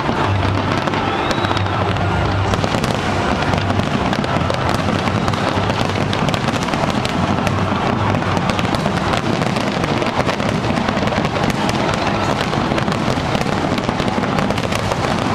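Fireworks display: a dense, unbroken barrage of bangs and crackling, with a faint gliding whistle now and then.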